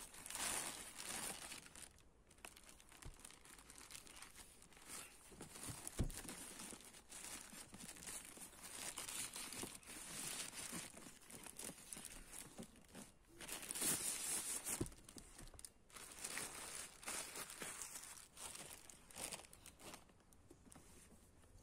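Plastic mailer bag crinkling and tearing in irregular bursts as it is pulled off a cardboard box, with a couple of dull knocks.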